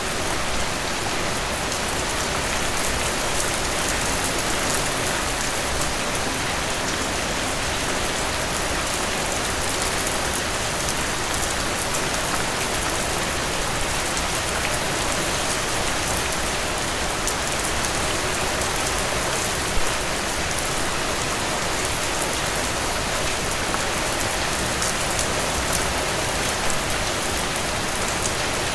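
Steady rain falling on a surface: an even, constant hiss with many fine drop ticks, and one slightly louder drop about two-thirds of the way through.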